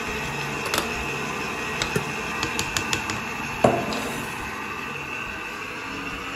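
Electric stand mixer running steadily, its flat beater turning through a thick batter in a stainless steel bowl. Several sharp clicks and one louder knock about three and a half seconds in, as things tap against the bowl.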